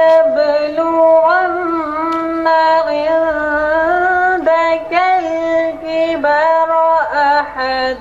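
A single voice reciting Quranic verses in Arabic in the melodic tilawat style: long held notes that step and slide in pitch, with a few brief breaks.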